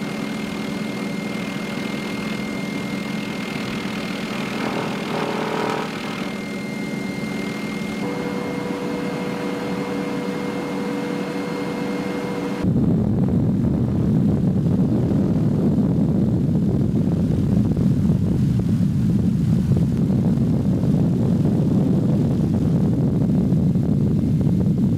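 MD 530F Cayuse Warrior helicopter's turboshaft engine and rotor running steadily in flight, heard from inside the cockpit as a steady hum with a high whine. About halfway through it changes abruptly to a louder, rougher rush of rotor and wind noise.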